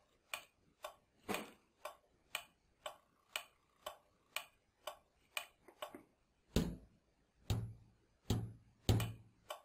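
Steady sharp clicking, about two clicks a second. In the second half come four louder, deeper knocks.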